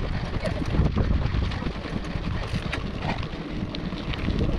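Wind buffeting the microphone of a camera on a moving mountain bike, over a low rumble of tyres on the road and small scattered rattles from the bike.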